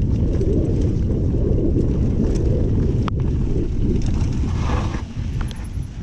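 Wind buffeting the camera microphone and mountain bike tyres rumbling over a dirt trail on a descent, with one sharp click about three seconds in. The rumble eases near the end.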